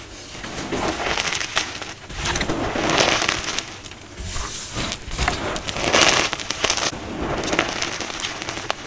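Dyed gym chalk being crushed and crumbled by hand: crunchy, crackling squeezes of broken chunks and powder, rising and falling in several swells.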